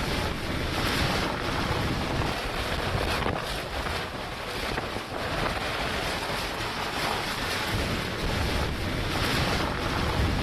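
Wind buffeting the microphone, a dense rushing noise that swells and eases in gusts.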